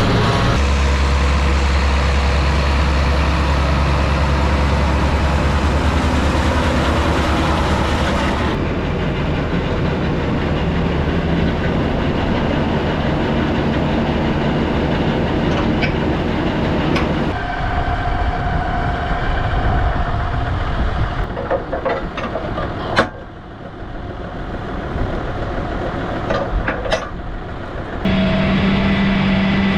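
Farm tractor engines running steadily, the sound changing abruptly about 8 seconds in, about 17 seconds in and again near the end. The quieter middle stretch has scattered sharp clanks and rattles, with one louder bang.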